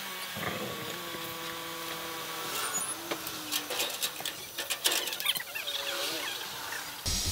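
Sharp clicks and light metallic knocks from a metal gate's latch being worked, over a quiet outdoor background with a brief high bird chirp.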